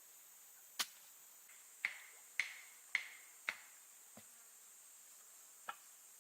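A series of sharp knocks, about seven in all; four in the middle come roughly half a second apart, each with a short ringing tone after it, as of something struck on a hard, resonant object.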